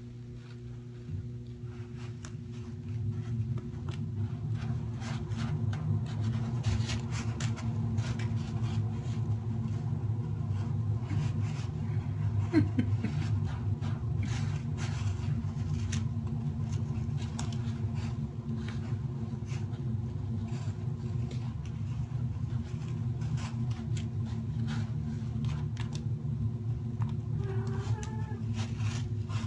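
Kitten digging and scratching in a plastic litter box of granular litter: a quick, irregular patter of scratches and rattling grains over a steady low rumble.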